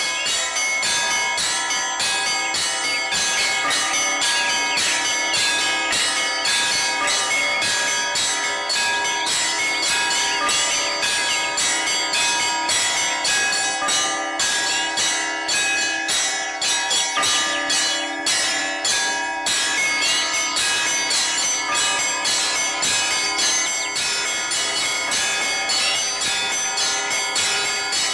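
Orthodox church bells ringing a continuous peal: many bells of different pitches struck in quick succession without a pause.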